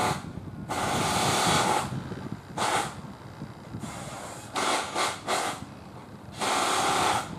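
Repeated bursts of hissing, each lasting from a fraction of a second to about a second, with a quick run of three short ones midway.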